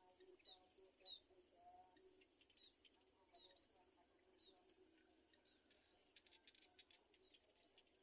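Faint, short high-pitched bird chirps at irregular intervals, the loudest just after a second in and near the end.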